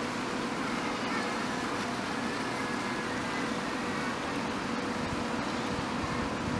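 Motorboat engines running steadily, a continuous engine hum over a wash of noise.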